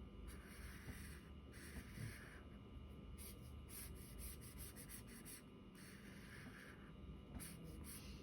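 Black sketch pen scratching faintly on drawing paper in short strokes that come and go several times.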